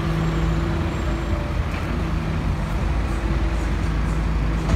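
Street traffic noise dominated by the steady engine hum of a red single-decker London bus standing close by, with a low, even drone.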